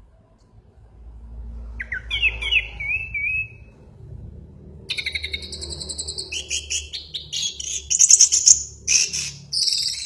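Orange-headed thrush singing: a short warbled, whistled phrase about two seconds in, then from about five seconds a long run of fast, high chattering notes, loudest near the end.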